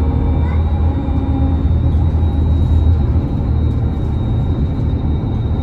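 Cabin ride noise inside a Solaris Urbino 18.75 electric articulated bus with a hydrogen fuel-cell drive, driving along: a steady low rumble with a faint, steady high whine over it.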